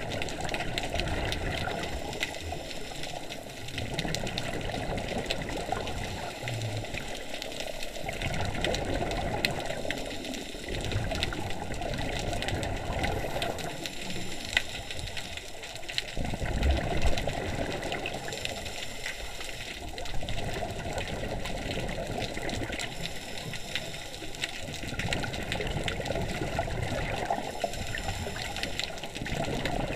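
Scuba breathing through a regulator underwater: a hissing inhale and gushing exhaled bubbles, repeating in a slow cycle every three to four seconds. A brief low bump sounds about halfway through.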